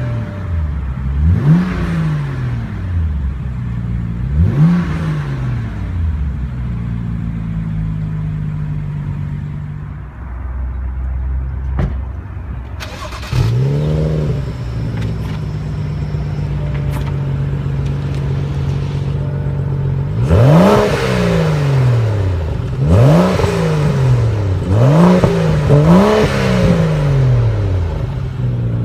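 The 2015 BMW M235i's 3.0-litre twin-scroll turbo inline-six revved in short blips while parked, dropping back to a steady idle in between. The first few revs are heard inside the cabin. The later ones are heard from behind the car at the twin exhaust tips, with a quick run of about six blips near the end.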